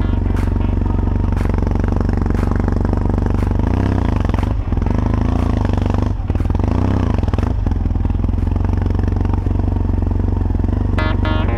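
Yamaha XTZ750 Super Ténéré's parallel-twin engine running steadily under way off-road, with a faint knock about once a second.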